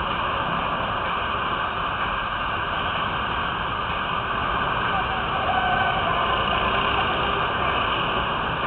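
Go-karts running on an ice rink: a steady, noisy drone that swells a little as a kart passes close about five seconds in.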